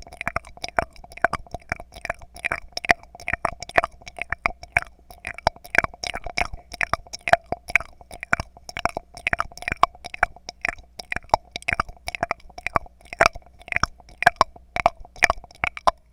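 Close-miked ASMR clicking and tapping: quick irregular taps, about three to four a second, each with a short hollow ring, stopping suddenly at the end.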